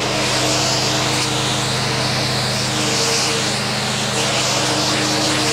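Pressure washer running steadily: a constant motor-and-pump hum under the loud hiss of the water jet spraying the car.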